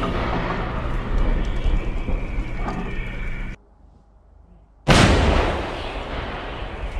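Artillery gun fire: the rolling rumble of a howitzer shot dies away and cuts off short about three and a half seconds in. Then, about five seconds in, a self-propelled howitzer fires with a sudden loud blast that rumbles on as it fades.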